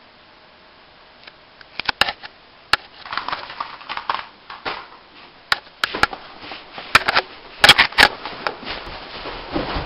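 After a quiet start, a scuffle of irregular knocks, bumps and crunches as a cardboard box is knocked about and handled close up, loudest about eight seconds in.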